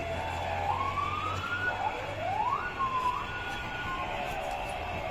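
Siren wailing in uneven up-and-down sweeps of pitch. It rises twice in the first half, holds a high note and fades about four seconds in, over steady street noise.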